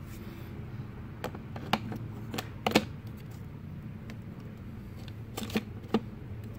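Sharp clicks and knocks of the Segway Ninebot Minipro's steering column being slid back down onto its plastic mount on the base: a scattered handful, the loudest about three seconds in, with a few more near the end.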